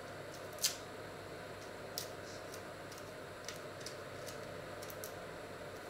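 Hard-boiled egg being peeled by hand: a few small, sharp clicks and crackles of shell breaking off at irregular intervals, over a steady low background hum.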